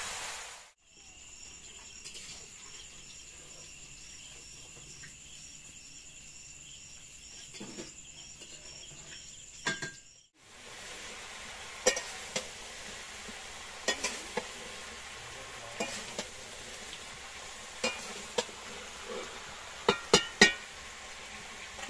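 Crickets chirping, a steady high trill with a regular pulse, for about the first ten seconds. Then food frying in pans over mud-oven fires: a steady sizzle with scattered sharp clinks of metal utensils against the pans.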